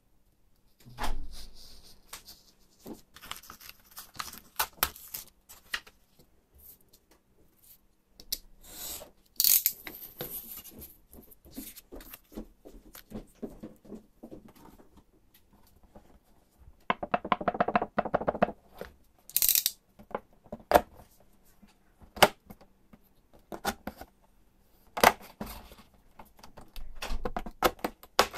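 Hand-crafting sounds from a snap-off utility knife and a steel ruler working paper and clear plastic packaging on a cutting mat: scattered clicks, knocks and scrapes, with a few short crinkling or tearing rasps. A quick run of rapid clicks comes past the middle.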